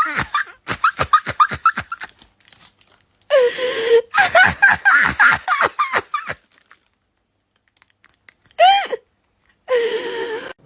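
A person laughing hard in rapid pulsed bursts, with a short high-pitched squeal about two-thirds of the way through.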